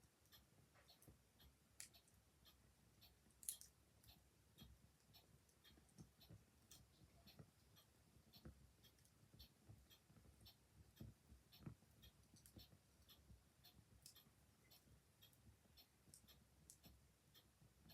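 Faint steady ticking of a mechanical clock, with the soft irregular crackles and pops of a quiet wood fire; the loudest pop comes about three and a half seconds in.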